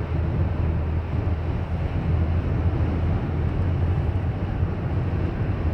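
Steady low drone over road rumble inside the cabin of a 2015 Chrysler Town and Country minivan on the move. It is the van's persistent unexplained noise, still there after five trips to the dealer.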